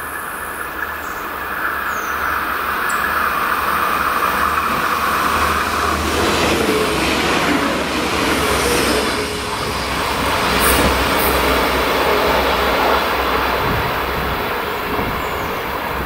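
Red diesel multiple-unit train passing at speed over a level crossing. The sound builds as it approaches, becomes a dense rush of wheel, rail and engine noise as it goes by from about six seconds in, and eases off near the end as it runs away.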